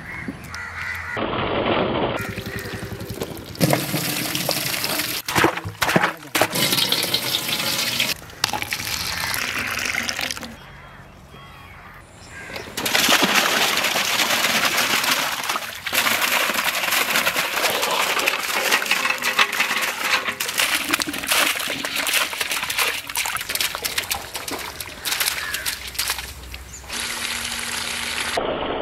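Water and liquid sounds, running, splashing and pouring, which change abruptly several times, with a quieter stretch about halfway through.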